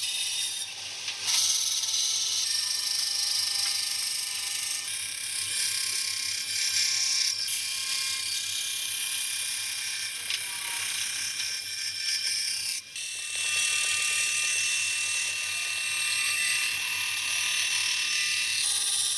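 Band saw running and cutting through wooden board: a steady high whine with a hiss of the blade in the wood, briefly dipping about a second in and again near 13 s.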